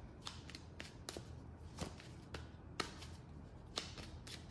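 Tarot cards being shuffled by hand: faint, irregular sharp card clicks and flicks, about one or two a second.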